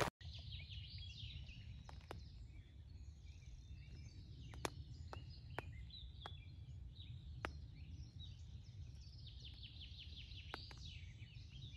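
Faint birdsong from several small birds, with short chirps and quick falling trills, over a low steady rumble. A handful of sharp single ticks are scattered through it.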